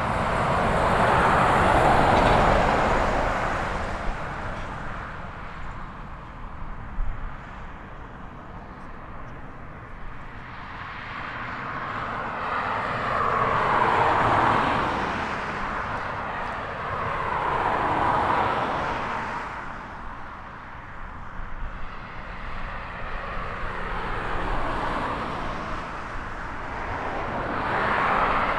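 Jet engine noise from a taxiing DHL Boeing 777 freighter's twin GE90 engines, heard as a rushing sound that swells and fades several times.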